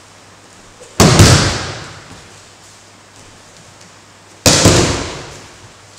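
Two heavy breakfalls slamming onto the dojo mats about three and a half seconds apart, a thrown partner's body and arm slapping down hard, each echoing for about a second.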